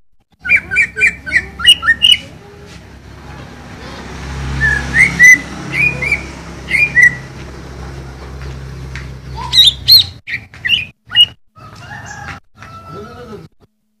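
Greater green leafbird (cucak ijo) singing: bursts of quick sharp chirps and short whistled notes, with pauses between phrases. A low steady hum runs underneath and stops about ten seconds in.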